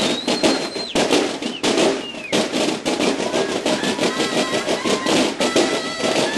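A Mexican banda de guerra's line of field drums beating a fast, dense run of strokes without pause.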